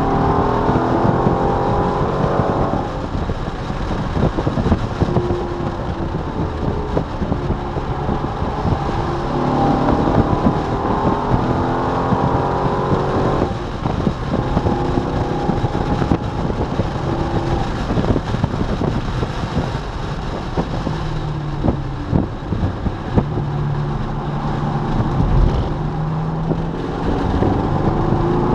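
C5 Corvette Z06's LS6 V8 heard from inside the cabin at track pace: the engine pitch climbs hard under acceleration, drops sharply at upshifts about 3 s and 13 s in, and climbs again near the end, with flatter stretches in between. Wind and road noise run throughout, with scattered knocks and rattles in the cabin.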